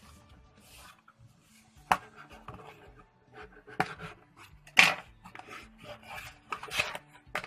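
A delivery package being opened by hand: irregular rustles, scrapes and knocks, the loudest just before five seconds in.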